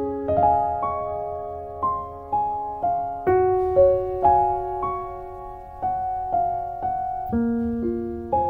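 Slow, gentle piano music: single notes and soft chords struck about every half second, each ringing and fading before the next.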